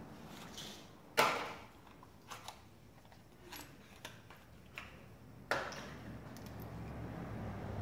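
Tools or parts being handled: scattered light clicks, with two sharper knocks that ring briefly, about a second in and about five and a half seconds in.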